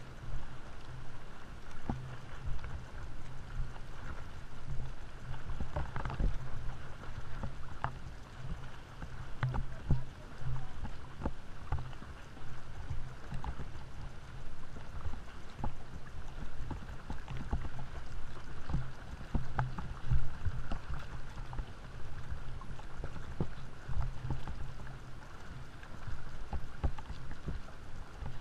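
Seawater sloshing and slapping around a camera held at the surface during sea swimming, with irregular splashes, over a steady low hum.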